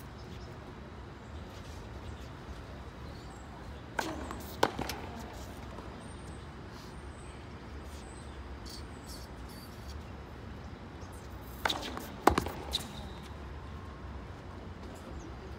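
Tennis balls being hit with rackets and bouncing on a hard court: sharp pops in two clusters, a pair about four seconds in and a group of three about twelve seconds in, over a steady low hum.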